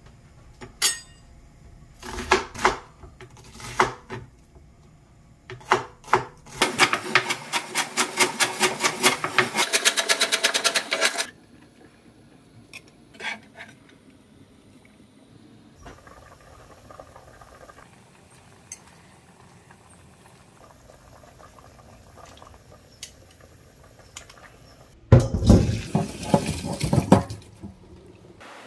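Chef's knife cutting a red onion on a wooden cutting board: a few single cuts, then a run of rapid chopping, several strokes a second, as the onion is diced. Near the end, hot cooking water splashes out as boiled tripe and offal are drained through a metal strainer.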